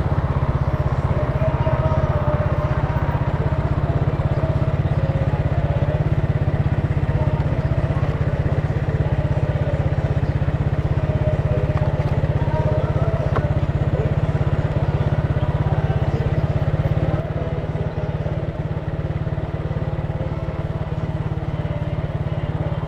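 Italika TC300 motorcycle engine running steadily under way, heard from the rider's seat with road and street noise. About seventeen seconds in, the engine sound drops in level and stays quieter.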